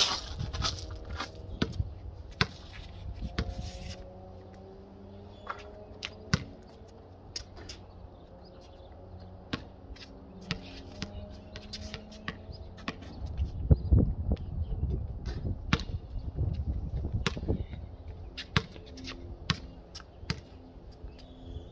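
A basketball bouncing on a concrete court: sharp thumps at irregular intervals as it is dribbled and shot. A low rumble swells for a few seconds in the middle.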